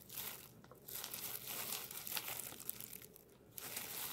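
Plastic wrapper of a convenience-store pizza cheese bun crinkling as it is handled and opened, in irregular crackles, dropping off briefly about three seconds in.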